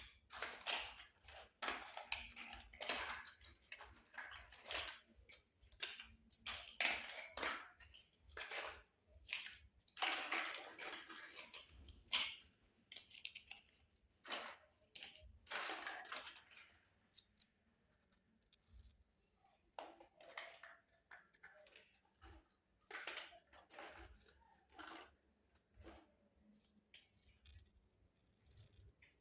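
Miniature toy kitchen pieces being handled and set down: many light clicks and clinks, irregular throughout, with a few longer stretches of rustling of about a second each.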